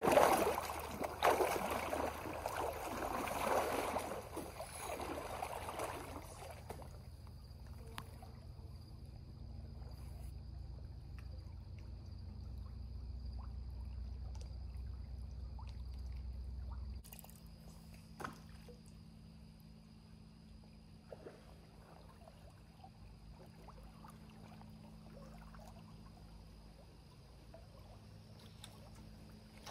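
Water sloshing and splashing around chest waders as a man wades out through a shallow river, loud for the first six seconds or so. After that only the faint wash of the river remains, with a few light splashes.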